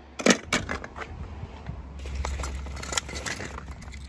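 Small die-cast toy cars clicking and clattering against each other and a plastic bowl as they are picked out by hand: a few sharp clicks in the first second, then scattered lighter clicks.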